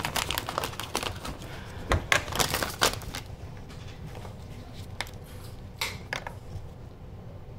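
Small plastic clicks and knocks from an ELISA test device and sample tubes being handled on a countertop. The clicks are busiest in the first three seconds, then come only a few at a time.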